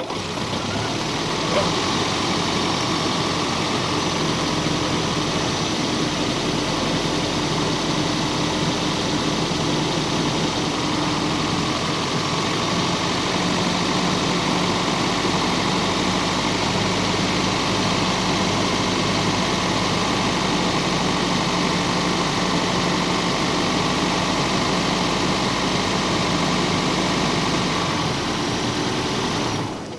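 Toyota Prius petrol engine starting abruptly and running steadily for about half a minute, its note shifting slightly partway through, then shutting off just before the end.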